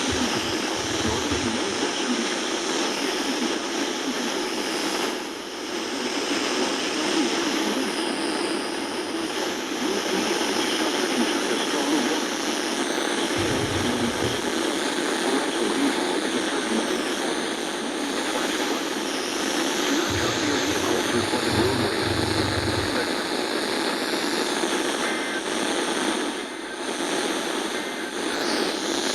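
Steady hiss of radio static on a broadcast receiver, with brief low rumbles about 14 and 21 seconds in and a short drop in the noise near 5 and 26 seconds.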